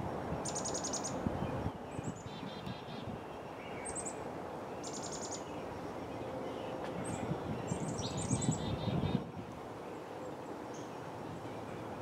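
A chorus of many wild songbirds calling from bare trees overhead: short high chirps and quick rattling trills from several birds, overlapping, over a steady outdoor background hiss. Two brief low rumbles come through, about a second in and again about three quarters of the way through.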